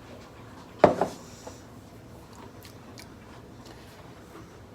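A drinking cup being handled while it is tasted from: a sharp knock about a second in and another at the end, with faint small clicks between.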